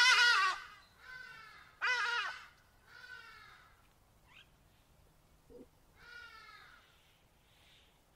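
Cheetahs at a kill giving short, high, bird-like chirping calls, each dipping in pitch at the end. The two loudest come at the start and about two seconds in, with fainter calls between and one more about six seconds in.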